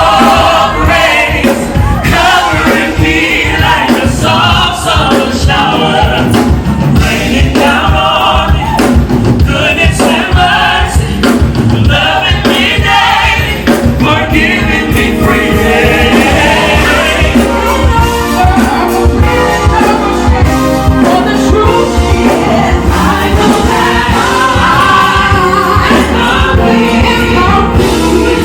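Live gospel music: a choir of voices singing over a full band with a steady beat.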